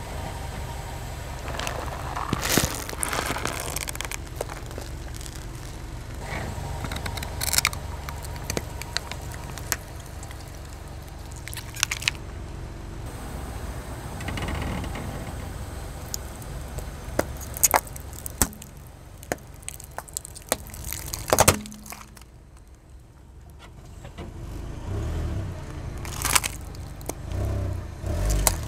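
A car tyre rolling slowly over asphalt and crushing plastic toys, with a low rumble under many sharp cracks and crackles of plastic giving way. The loudest crack comes about two-thirds of the way in, and dull thuds follow near the end as small plastic slime barrels are flattened.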